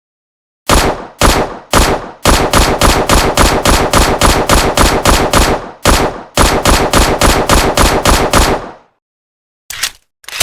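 OTs-23 Drotik pistol gunshot sound effects. First come three single shots about half a second apart, then rapid fire at about four shots a second. After a brief pause there is a second run of rapid fire. Two short, quieter sounds come near the end.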